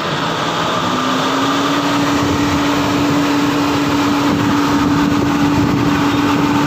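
Steady electric whirring from under a 2012 Toyota Grandia van with the ignition switched on, rising to a held pitch about a second in; the owner likens it to a radiator cooling fan. It runs while the engine will not start.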